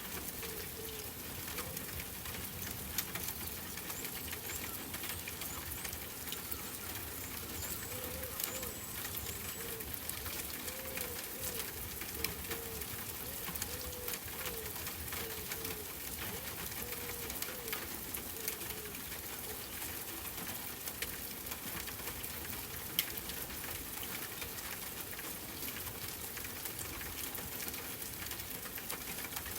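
Steady rain hissing with scattered sharp drop clicks. Over it a dove coos over and over in low, arching calls that stop about two-thirds of the way through, with a few faint high bird chirps early on.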